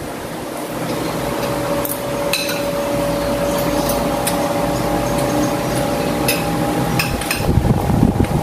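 Spoons and forks clinking and scraping on ceramic dinner plates, several short sharp clicks scattered through, over a steady hum with a couple of held tones.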